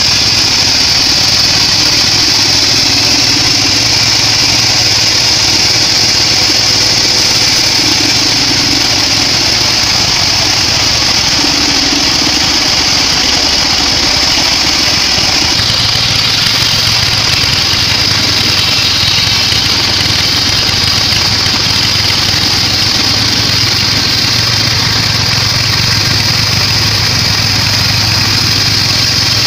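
Sawmill bandsaw running steadily as it saws weru timber: a constant high-pitched blade noise over a low drive hum, shifting slightly about halfway through.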